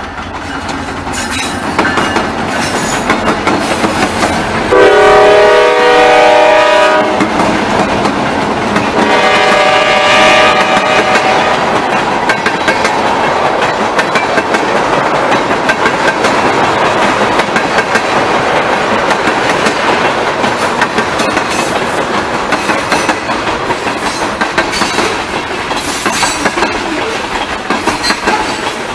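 Diesel-hauled freight train passing close by. The locomotive horn sounds two blasts of about two seconds each, near five and nine seconds in. Then a long string of tank cars and hopper cars rolls past with a steady clickety-clack of wheels over the rail joints.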